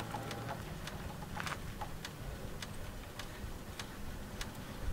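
Light, sharp clicks and ticks, one or two a second at uneven spacing, from hands working at the wiring and fuse/relay connections in an old 4x4's engine bay.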